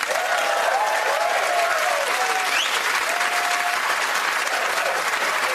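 Studio audience applauding, with a few cheers and a short rising whistle about two and a half seconds in.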